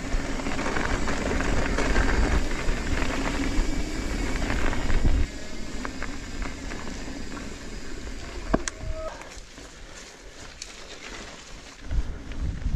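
Electric mountain bike with its motor switched off, coasting downhill: tyres rolling over a loose gravel track with a low rumble, louder for about the first five seconds and quieter after. A few sharp clicks and a brief squeak come near the middle.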